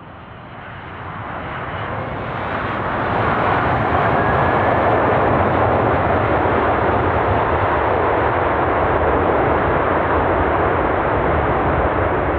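Boeing 767-300ER twin-engine jet airliner coming in to land, its engine noise swelling over the first three seconds into a loud, steady rushing noise that holds to the end.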